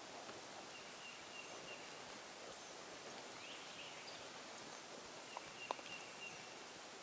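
Faint woodland ambience: a steady hiss with a few brief bird chirps and a thin, high steady tone that comes and goes. A single sharp click sounds near the end.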